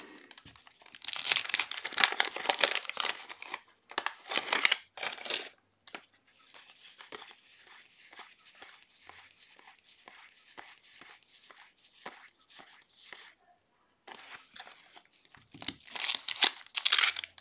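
Waxed-paper wrappers of trading-card packs crinkling and tearing as a pack is opened. In the middle comes a steady run of soft card flicks, two or three a second, as the cards are thumbed through one by one. Near the end another wax pack is torn open with loud crinkling.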